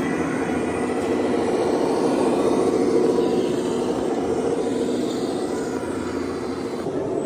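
A steady engine-like drone mixed with general hall noise, fading slightly near the end.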